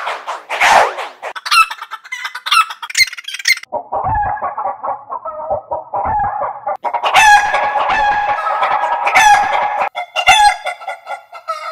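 A string of digitally altered chicken clucks and rooster crows, the effect changing every few seconds: first pitched up very high, then muffled with the top cut off, then fuller clucking and crowing, then another altered version near the end.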